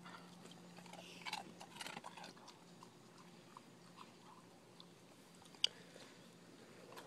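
Golden retriever chewing a dog treat: faint crunches clustered about a second in, then scattered small mouth clicks and one sharper click later on.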